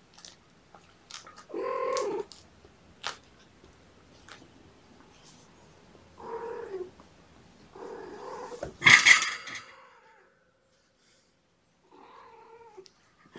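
Young kittens, about five weeks old, mewing: a handful of short calls spread out, with one louder, rougher cry about nine seconds in.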